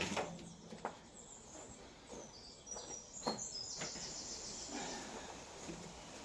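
Faint handling knocks and clicks from someone working on the vehicle, with short high bird chirps in the background about two to four seconds in.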